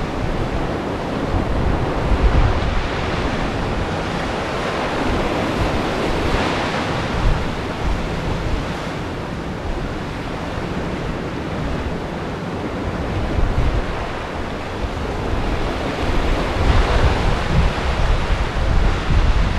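Ground swell surging and breaking against sea rocks, a loud wash of surf that swells up about six seconds in and again near the end, with wind rumbling on the microphone.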